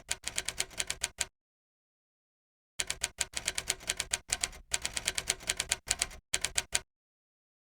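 Rapid typing clicks, like keys on a keyboard or typewriter, about eight a second. They come in runs, with a break of about a second and a half near the start and silence near the end.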